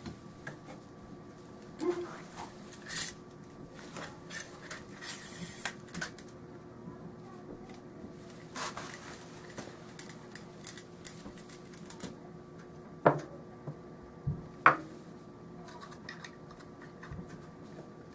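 Steel parts of an SKS rifle clicking, clinking and scraping as the gas piston and handguard are put back together after cleaning, with two sharper clicks near the end.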